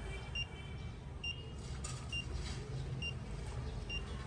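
Fingertip pulse oximeter (A2 type) beeping with the pulse it detects: five short, high-pitched beeps, evenly spaced a little under a second apart.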